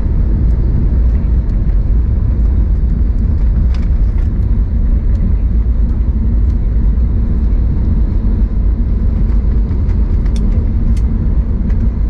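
Cabin noise of an Airbus A320neo rolling on the ground: a steady low rumble from the engines and wheels, with a few faint clicks.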